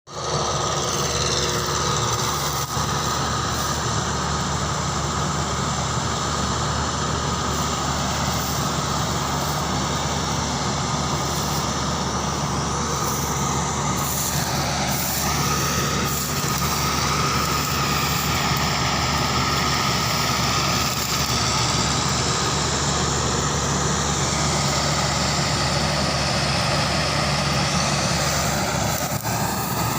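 Claas Crop Tiger 40 combine harvester running steadily, a constant engine drone overlaid with a steady high whine from its machinery.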